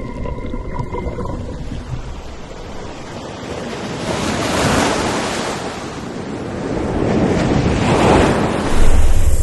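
Ocean waves surging, a steady wash of surf that swells twice, about halfway through and again near the end.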